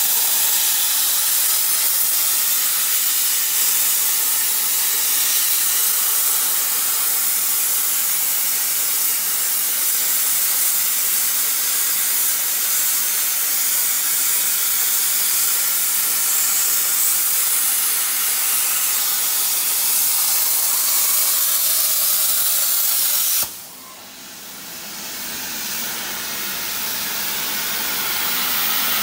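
CNC plasma cutting torch cutting steel plate: a loud, steady hiss of the arc. It cuts off suddenly near the end, leaving a much quieter hiss that slowly grows louder.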